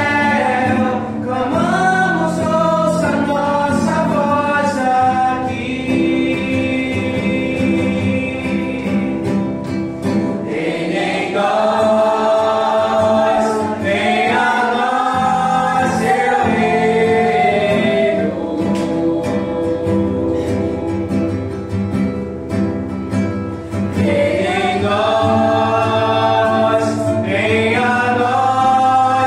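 Voices singing a Christian worship song together to an acoustic guitar accompaniment.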